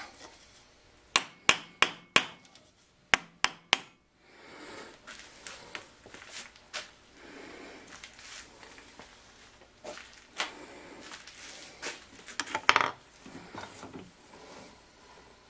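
Sharp taps, a run of four and then three about a third of a second apart, followed by scattered lighter clinks and rubbing: copper jaw covers being fitted and seated on a steel three-jaw lathe chuck.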